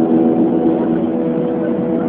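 Steady drone of a jet airliner's engines and rushing air heard inside the passenger cabin in flight, with several steady humming tones running through it.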